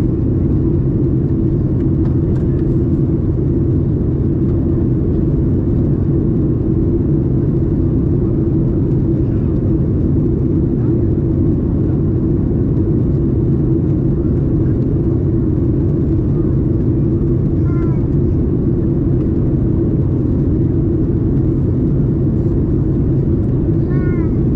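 Boeing 737 MAX 8 cabin noise heard from a window seat: a loud, steady, low drone of the CFM LEAP-1B engines and airflow, unchanging throughout, as in flight.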